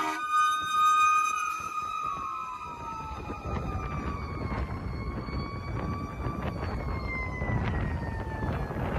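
Fire engine siren sounding as the truck passes and pulls away, its tones sliding down in pitch and fading into the distance. Wind rumbles on the microphone from about three seconds in.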